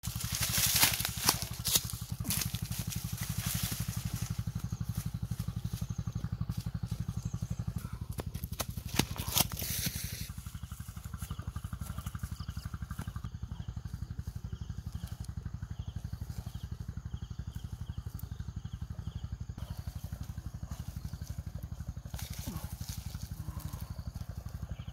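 A steady low hum throughout. During the first ten seconds, sharp rustles and footsteps in dry grass and fallen leaves.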